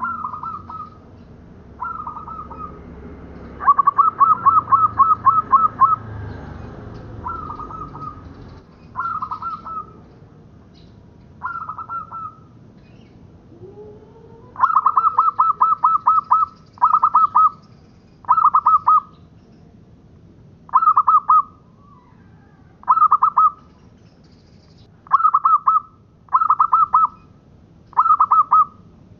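Zebra dove (perkutut) singing: its song is short bursts of rapid, staccato cooing notes repeated every second or two. Two longer runs of notes come about four and fifteen seconds in.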